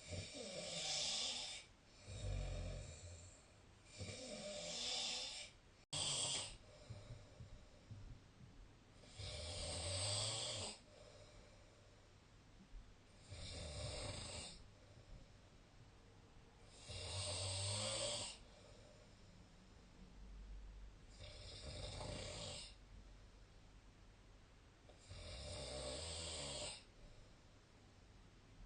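A sleeping person snoring, a rasping snore with each breath every two to four seconds, with quieter breathing between the snores.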